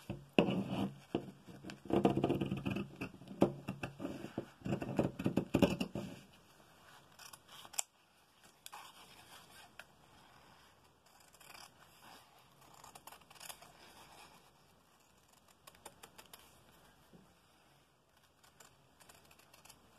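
Fabric scissors snipping through layered fabric, with the cloth rustled and shifted on a tabletop. The handling is loudest over the first six seconds, then only quieter, scattered snips and scrapes follow.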